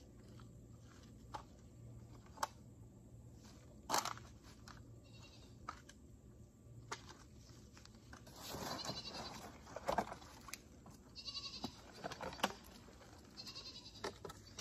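A goat bleating several times in the second half, over scattered sharp clacks of black plastic nursery pots and trays being handled and set down.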